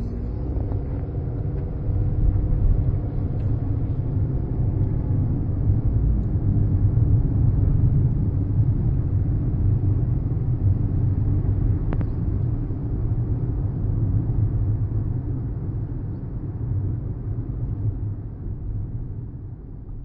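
Road noise inside a moving car: a steady low rumble of tyres and engine heard from within the cabin, fading away near the end.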